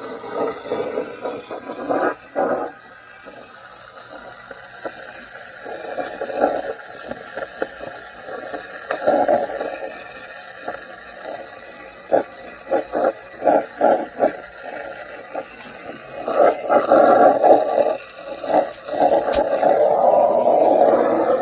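Oxy-fuel torch flame hissing steadily while soldering a copper refrigerant line at the coil, with irregular crackling and sizzling as the wet rag wrapped on the line steams against the flame. The sizzling gets busier over the last few seconds.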